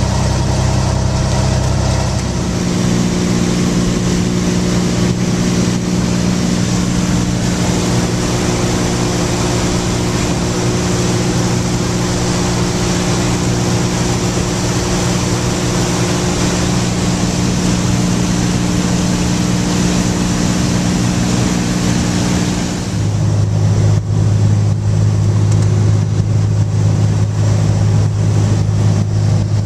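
Cabin noise of a 1960 Cessna 210's six-cylinder piston engine and propeller, a loud steady drone. It runs at ground power on the ramp at first, steps abruptly to a different pitch about two seconds in for flight, and drops to a lower, stronger drone near the end.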